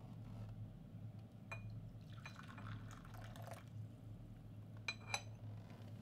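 Water poured briefly into a white porcelain gaiwan, then two quick ringing clinks of the porcelain lid being set on the cup, near the end.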